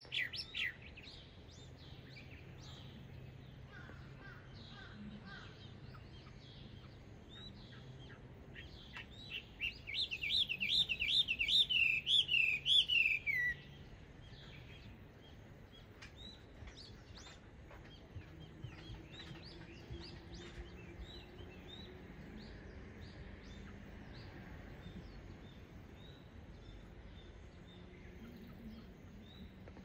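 Chinese hwamei singing: scattered single notes and short phrases, then a loud run of rapid repeated rising notes about ten seconds in that ends in a falling slur.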